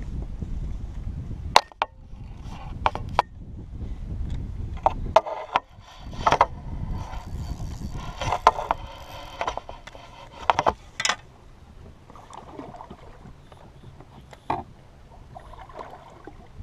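Scattered clicks and knocks of fishing gear handled in a boat, as the landing net's metal frame and the spinning rod are moved about. For about the first five seconds a low rumble of wind buffets the microphone.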